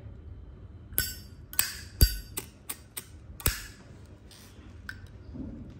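A Zippo lighter being worked by hand gives a series of sharp metallic clicks and clinks, about eight in all, from its hinged lid flipping open and snapping shut and its flint wheel being struck. The loudest click comes about two seconds in.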